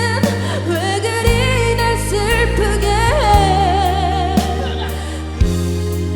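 A singer holding long notes with vibrato over a backing track of sustained bass and chords, with a quick upward vocal flourish about three seconds in.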